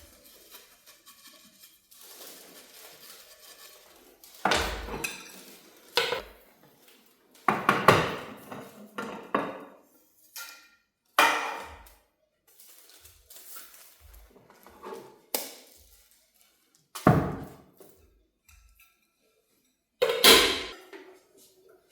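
Dishes and utensils clinking and knocking as they are handled, in separate clatters a second or a few seconds apart, with short ringing tails.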